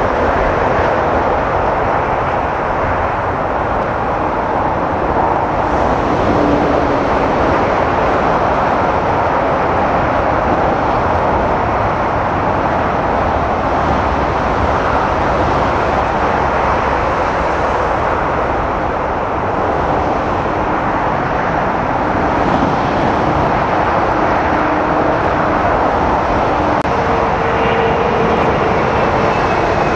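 Steady jet-engine roar of an Air India Boeing 787-8 airliner landing and rolling out on the runway, a loud, even rushing sound that barely changes throughout.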